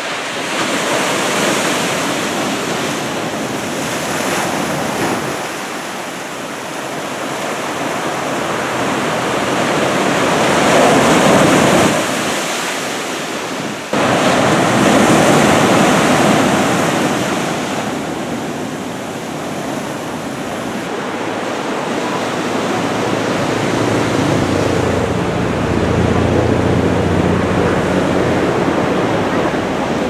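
Heavy ocean surf from a typhoon swell, waves breaking and washing in as a steady rushing noise that swells and fades every few seconds. It jumps abruptly louder about fourteen seconds in.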